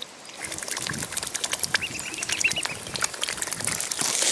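Mute swan cygnets dabbling for sweetcorn at the water surface: a rapid patter of small splashes and bill clicks, louder near the end, with a run of short high peeps about two seconds in.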